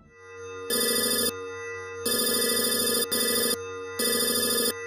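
Electronic title-card sound effect: a steady hum with four short bursts of a rapid, ring-like electronic trill.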